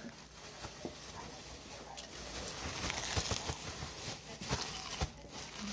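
Close-up eating sounds: a crisp quesadilla being bitten and chewed, with irregular crunchy crackles and mouth smacks that come thickest in the middle.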